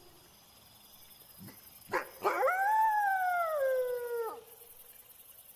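A wolf gives a short yelp, then one howl of about two seconds that rises and then slides down in pitch before cutting off. A faint, steady, high cricket chirring sounds behind it.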